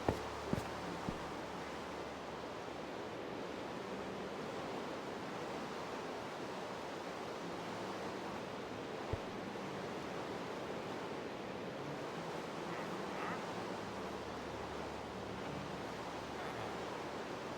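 Steady hiss of rain, with a few light knocks near the start and one sharper knock about nine seconds in.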